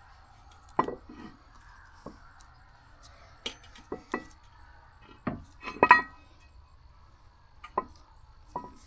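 Irregular metal clanks and clinks, about nine in all, some with a short ring, the loudest about six seconds in: steel parts and tools being handled and knocked in a welding shop.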